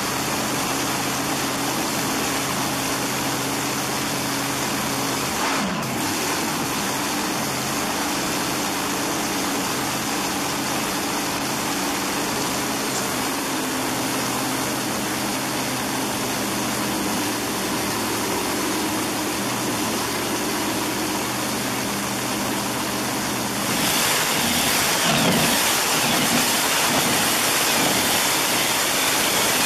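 Big-block Chevy V8 in a dragster, running on open headers at a steady idle. About 24 seconds in it is revved up and runs louder. This is the engine's fire-up on its newly fitted Aeromotive fuel pump.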